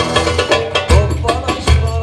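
Live Turkish folk music: a long-necked saz played over a backing rhythm with deep bass notes and steady percussion.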